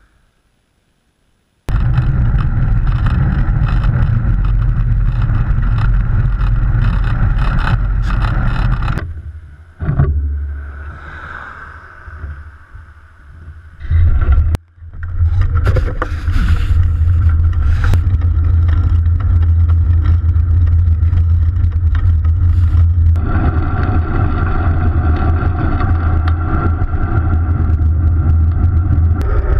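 Wind buffeting and road rumble on a handlebar-mounted action camera's microphone while a bicycle is ridden, a heavy low rumble that starts suddenly about two seconds in. It eases off for a few seconds in the middle, cuts out briefly, then comes back loud and steady.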